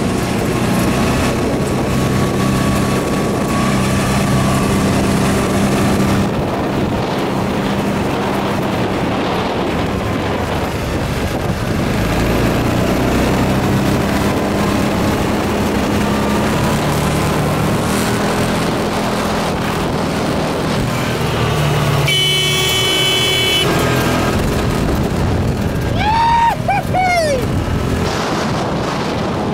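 Off-road buggy engine running steadily as it drives along a dirt track, with rumble and rattle from the ride. About three quarters of the way through, a horn sounds once for about a second and a half, and a short falling squeal follows near the end.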